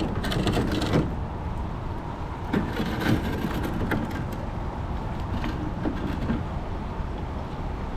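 Steady low rumble, as of wind on the microphone, with bursts of rustling and knocks of handled gear about a second in and again around three seconds in.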